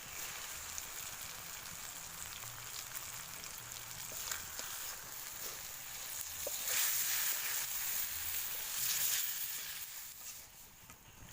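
Catfish frying in hot oil: a steady sizzle with small scattered pops. It grows louder for a few seconds past the middle and eases off near the end.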